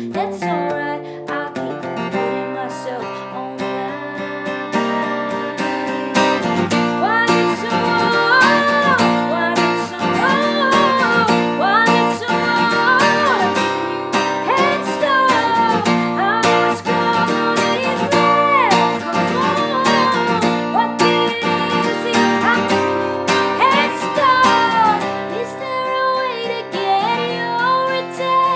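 Acoustic guitar strummed with a woman singing over it; the voice grows stronger from about six seconds in.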